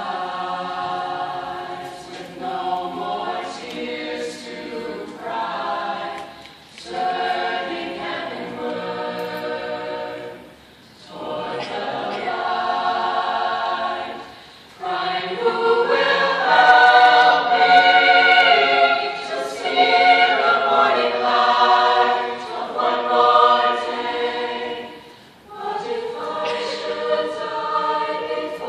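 Mixed high school choir singing in long held phrases, with short breaks between them; it swells to its loudest about halfway through.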